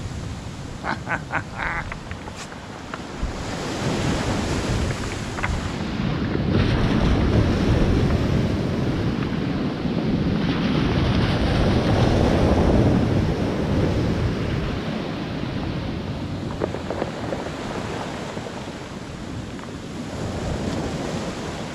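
Waves breaking and washing up a pebble beach, with wind buffeting the microphone. The surf swells louder through the middle and then eases off, and a few short clicks come about a second in.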